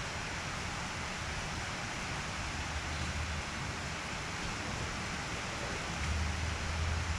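Steady rain falling, an even hiss throughout, with a low rumble twice, briefly around the middle and near the end.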